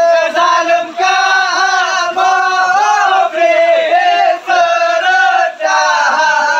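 Men's voices chanting a Seudati song, unaccompanied, in loud sung phrases with short breaks between them.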